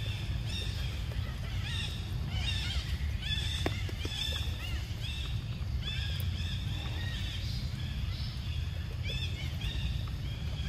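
Young macaque squealing over and over in short high chirps, several a second, as it begs for and tugs at a piece of mango, over a steady low rumble.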